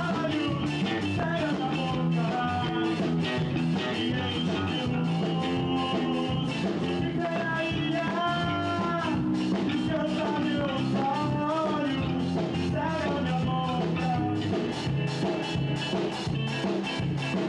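Live rock band playing: electric guitars, bass and drums with a steady beat, and a man singing into a handheld microphone.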